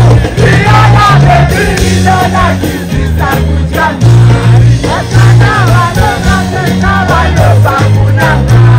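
Live concert music played loud over a large PA system: a heavy bass line with a lead singer's voice on top.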